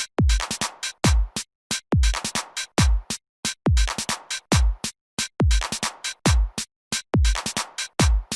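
Electronic background music with a drum-machine beat: deep kick drums that drop in pitch, with sharp clicking hits between them and brief silent gaps.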